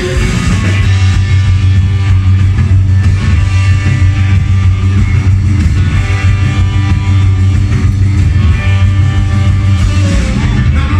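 Rock music: guitar and drums playing steadily, loud, with a heavy bass line and no singing in this stretch.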